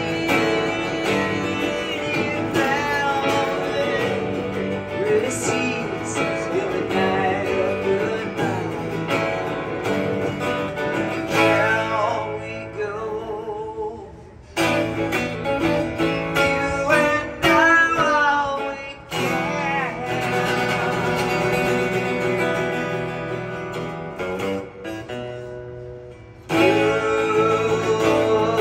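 Live solo acoustic guitar and voice: a singer strumming an acoustic guitar and singing. The playing drops to a quieter moment twice, about halfway through and again near the end.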